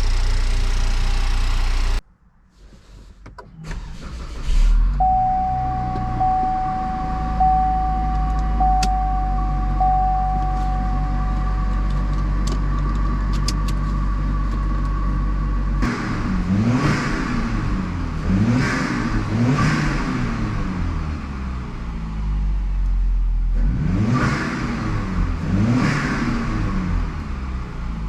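Buick Regal GS's 2.0-litre LTG turbocharged four-cylinder, breathing through a K&N cold air intake, running steadily, then revving up and down over and over in the second half with loud intake noise. A steady electronic tone sounds for several seconds early on.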